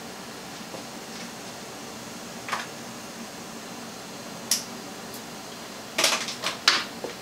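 Scattered clicks and light clatter from hands handling power cables and objects on a desk: one click about two and a half seconds in, a sharper one a couple of seconds later, and a quick cluster of clicks near the end, over a faint steady room hum.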